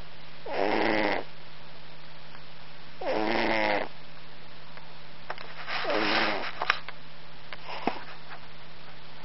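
Norwegian Forest cat snoring: three short rattling snores about two and a half seconds apart, each rising slightly in pitch, followed by a couple of small clicks near the end over a steady low hum.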